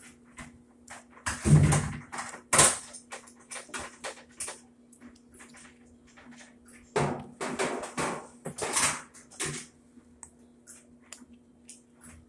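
Knocks and plastic-and-metal clatter from a suspension rod being worked loose and pulled out of a Whirlpool Bravo top-load washer's cabinet. The sounds come in two busy bursts, about a second and a half in and again about seven seconds in.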